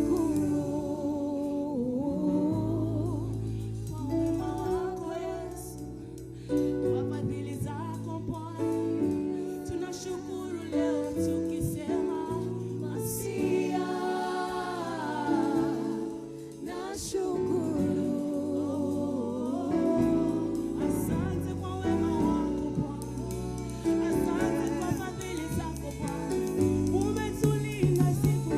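Gospel worship music: singing voices with instrumental backing that holds steady low bass notes.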